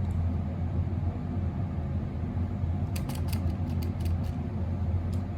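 Steady low hum with a quick run of about ten sharp clicks about three seconds in, from clicking at a computer while entering a spreadsheet formula.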